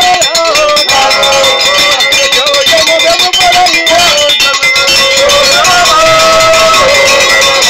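Live street music: voices singing or chanting together over dense, rapid percussion with a bright, clanking edge.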